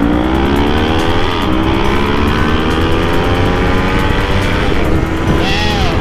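Sport motorcycle engine revving hard under acceleration, its pitch climbing steadily, dropping for an upshift about a second and a half in, climbing again, and dropping for another shift near the end.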